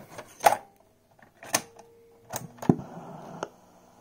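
Handling a compact cassette and the cassette deck of a SuperSonic SC-3201BT boombox: a few sharp plastic clicks and clacks as the tape is turned over, loaded and the deck door is shut, the loudest about half a second in and near three seconds in. A faint steady hiss follows near the end.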